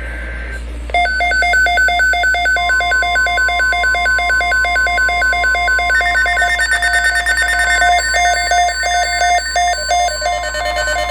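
Emergency alert on NOAA Weather Radio: the end of a digital SAME header data burst, then from about a second in a weather radio's alert alarm beeping loudly and rapidly. Under it, from a little later, the broadcast's steady 1050 Hz warning alarm tone sounds.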